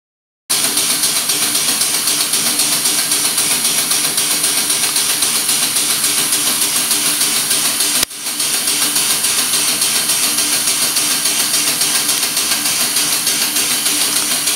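Steam engine of a scale model of Trevithick's London Steam Carriage running on compressed air: a steady hiss of exhaust with a fast, even beat. The sound starts suddenly and briefly drops out about eight seconds in.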